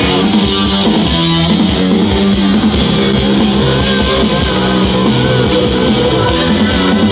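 Guitar-led rock music with a steady beat.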